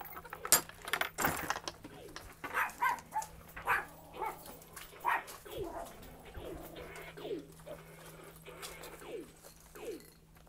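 Knocks and rubbing from a phone being handled, the loudest about half a second in. From about halfway there is a string of short animal whines, each falling in pitch, about one a second.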